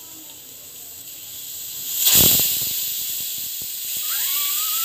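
Stovetop pressure cooker venting steam past its weight valve as it comes up to pressure. A hiss builds, with a sharp burst of steam about two seconds in. Near the end the whistle starts as a thin tone rising slowly in pitch.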